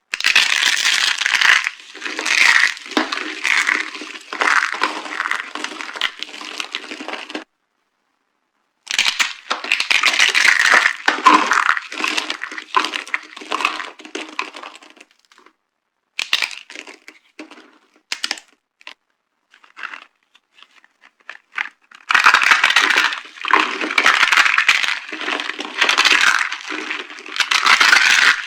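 Dry soap being crushed and broken apart, crunching and cracking in dense stretches. A short cut to silence comes about a quarter of the way in, and the middle holds only scattered small cracks before heavy crunching resumes.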